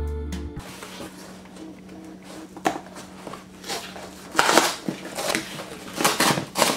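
Brown cardboard mailer being torn open along its tear strip by hand: ripping and rustling of heavy paper, loudest about four and a half seconds in and again near the end.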